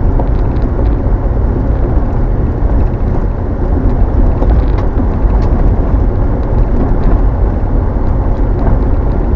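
Car driving along an unsealed dirt road: a steady, loud low rumble of tyre and road noise, with a few faint scattered ticks.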